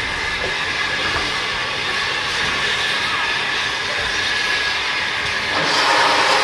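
Steam locomotive letting off steam: a steady hiss that grows louder about five and a half seconds in.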